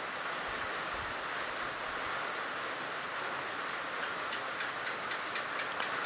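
Steady hiss-like outdoor background noise. About two thirds of the way in, a quick run of short, high ticks joins it, several a second.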